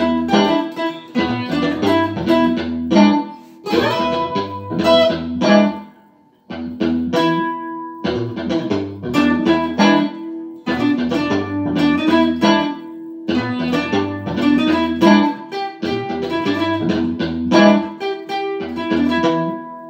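Funk guitar jam through a guitar amp's looper. A looped bass line and choppy funk rhythm guitar repeat, with lead guitar played over the top. The sound drops out briefly about six seconds in.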